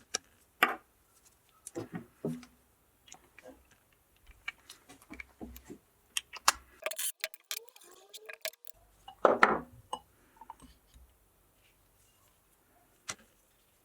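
Scattered clicks and clinks of hand tools and small metal parts as a 1.9 TDI diesel injection pump is taken apart, with a short louder sound about nine and a half seconds in.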